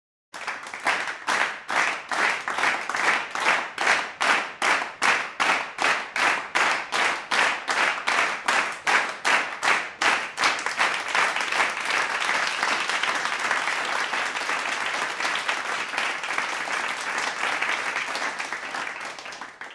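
Audience clapping in unison, about three claps a second, for some ten seconds, then breaking into general applause that fades out near the end.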